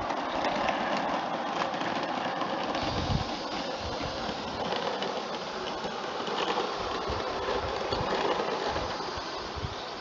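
Live-steam garden-scale model locomotive and coaches running along the track: a steady stream of small clicks and rattles that fades slightly near the end.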